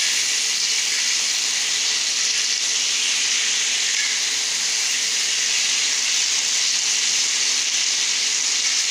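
Oil sizzling steadily on a tawa as halved brinjals shallow-fry in it.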